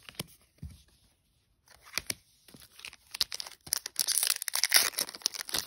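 Foil booster pack wrapper being crinkled and torn open: a few light clicks first, then a dense crackling that builds and grows louder over the last three seconds.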